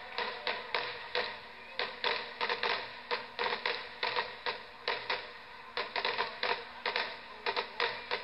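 Fireworks crackling and popping, a rapid irregular string of sharp cracks several times a second.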